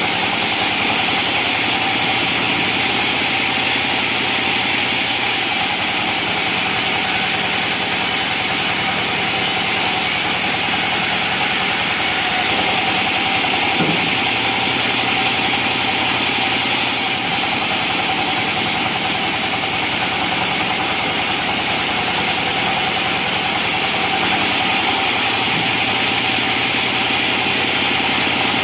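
Sawmill machinery running steadily: an engine-driven saw with a constant tone and a strong high hiss, without pauses or changes.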